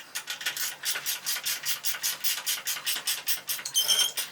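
Rapid rhythmic rubbing or scraping, about five strokes a second, with a few light metallic clinks near the end.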